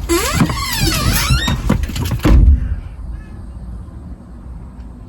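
A car door squeaking as it swings, with wavering rising and falling squeals, then shut with a heavy thud a little over two seconds in. After the thud, the quieter sound of the closed cabin.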